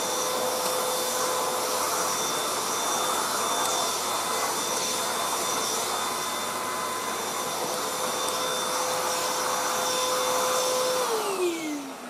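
Beaumark TinyTurbo V600 (BM222) handheld vacuum cleaner running with a steady motor whine and rush of air. Near the end it is switched off and the whine falls away as the motor winds down.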